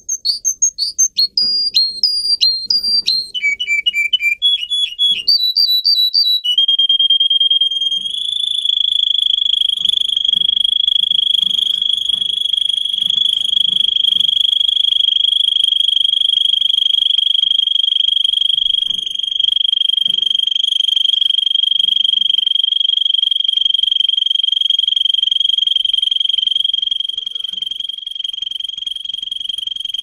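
Domestic canary singing. For about six seconds it gives rapid, varied chirps and trills that jump in pitch. It then settles into one high rolling trill held at a steady pitch, unbroken for over twenty seconds.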